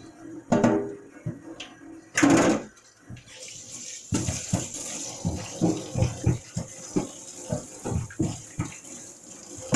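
Kitchen tap running into a stainless steel sink while hands are rinsed under the stream, with irregular splashing. There are two louder splashes, about half a second and two seconds in.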